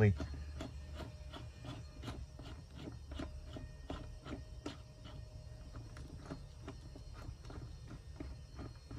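A ratchet-handled plusnut setting tool clicking in short strokes, about three clicks a second, as a plusnut is drawn tight into the van's roof.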